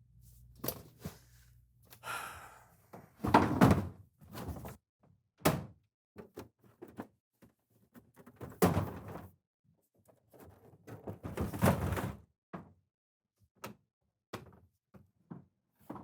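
Irregular thumps, knocks and bumps, mixed with stretches of rustling and scraping, as things are moved about while rummaging around a room. The loudest stretch comes a little over three seconds in.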